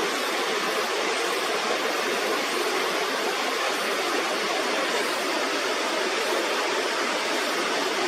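Steady rush of river water pouring over a weir, at its loudest with the river swollen after a typhoon.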